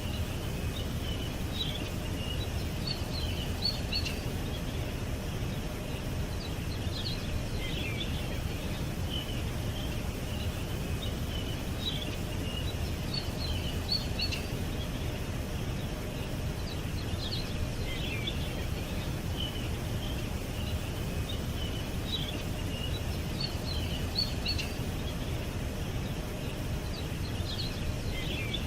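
Songbirds chirping: short, high calls coming again and again in small clusters over a steady low background rumble.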